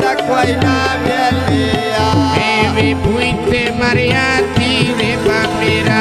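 Male voice singing a Punjabi folk mahiya, the melody sliding and bending, over a hand drum keeping a steady beat and held accompanying notes.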